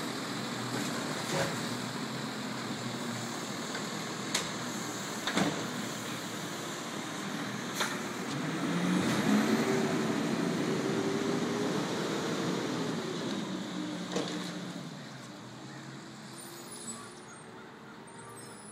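Diesel engine of an automated side-loader garbage truck running steadily, with a few sharp knocks. About eight seconds in the engine note rises and holds for several seconds, then falls away and the sound fades.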